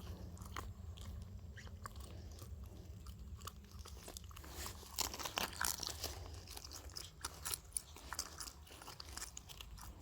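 Irregular crunching and clicking handling noises, densest about halfway through, over a low steady rumble.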